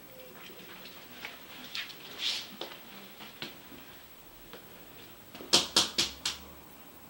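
Light scattered clicks and taps of a puppy's claws on a hard wooden floor, then a quick run of four sharper, louder clicks about five and a half seconds in.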